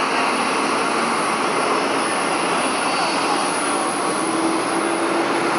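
Jet airliner engines during a landing: a steady, even rushing noise with no sudden changes.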